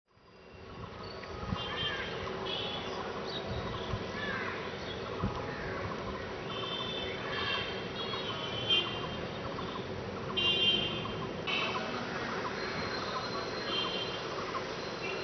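Outdoor ambience of birds chirping and calling in short repeated bursts over a steady background hum, fading in at the start.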